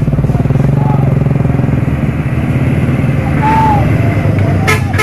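Road traffic engine noise: a motorcycle passing close by over the steady running of heavy diesel truck engines. A vehicle horn toots near the end.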